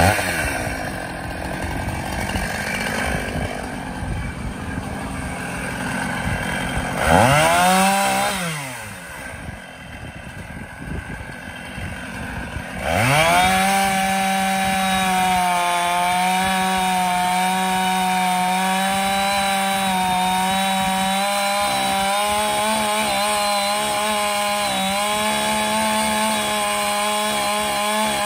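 Gas chainsaw running, revving up briefly about seven seconds in and dropping back to a low idle, then opened up to full throttle about thirteen seconds in and held at a steady high pitch as it cuts through a fallen tree trunk.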